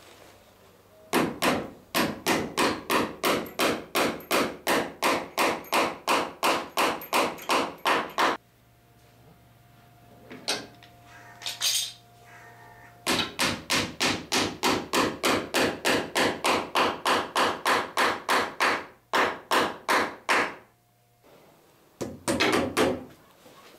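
Hammer driving copper boat nails through clinker planking into a wooden transom: two long runs of quick, even strikes, about three or four a second, with a pause between them and a few more strikes near the end.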